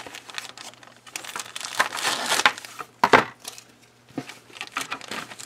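Clear plastic kit bag crinkling as it is handled with a plastic parts tree inside, in irregular crackles, loudest about two and three seconds in.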